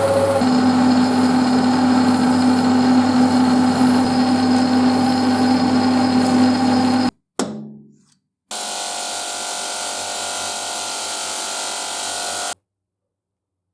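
Power tool running steadily with a hum, cut off abruptly about seven seconds in; a short sound dies away, then a second stretch of steady machine running lasts about four seconds and stops abruptly.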